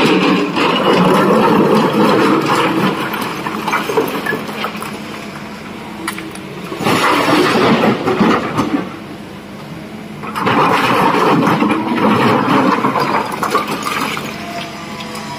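Sany hydraulic excavator's diesel engine running steadily under load while the steel bucket scrapes and digs through a pile of broken rock, with rocks clattering. About seven seconds in, a short loud spell of rock crashing fits the bucket dumping its load into the steel dump-truck body. From about ten seconds in, the digging and scraping start again.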